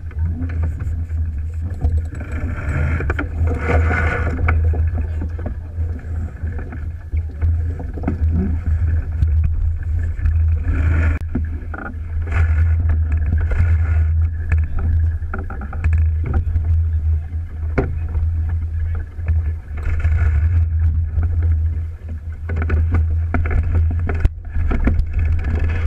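Alberg 30 sailboat under sail, with water rushing and splashing along the hull and wind buffeting the microphone in a constant low rumble.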